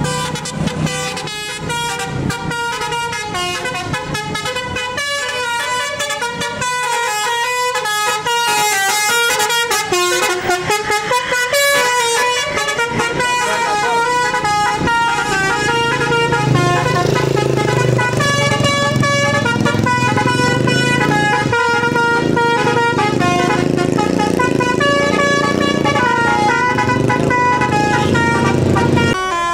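Bus basuri telolet air horns playing a tune of quick, stepped notes that keep changing pitch.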